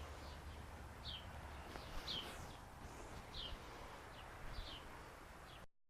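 A bird chirping outdoors: short, falling chirps repeated roughly once a second over a faint steady background hiss. The sound cuts off suddenly near the end.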